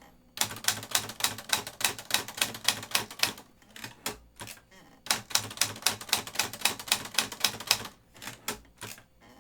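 1963 Olivetti Studio 44 manual portable typewriter being typed on fast with the shift lock engaged, its typebars striking the platen in quick runs of sharp clacks. There is a short pause about four seconds in, and a few last strikes near the end.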